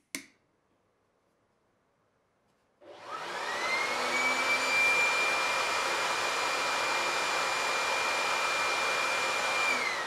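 Electric air blower starting up about three seconds in: a motor whine rises to a steady high pitch over rushing air, then begins to wind down with falling pitch just before the end. The blower is running at speed setting 4.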